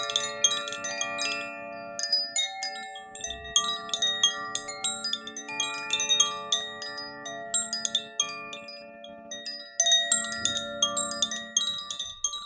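Bright chiming bell tones: many struck notes at different pitches, each ringing on and overlapping the others in a loose, unhurried stream.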